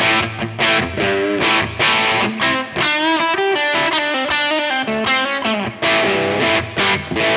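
Electric guitar played through a NUX 63 Diamond overdrive pedal, a Vox AC30-style drive, on a moderate crunch with the cut control taking some top end off. A run of chord stabs, then a phrase with bent notes about three seconds in, then more chords.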